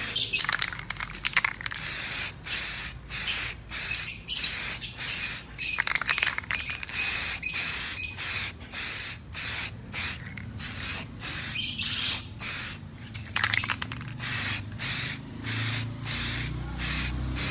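Aerosol can of Botny rubber paint spraying in short hissing bursts, about two a second with brief gaps, as another coat is laid on.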